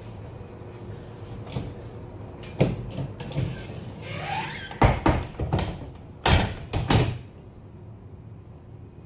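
A run of sharp knocks and thuds, with a short rising scrape of something sliding about four seconds in.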